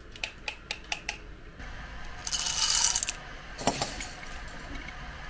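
Coffee beans poured into a metal hand coffee grinder, rattling in for about a second midway through. A run of light clicks as the grinder is handled comes first, and a single sharp knock follows the pour.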